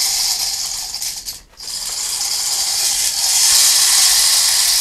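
Fun Time Rainbow Rainmaker toy with small coloured plastic beads cascading down through its clear tube, a steady rain-like rattling hiss. It stops briefly about a second and a half in as the toy is flipped over, then starts again.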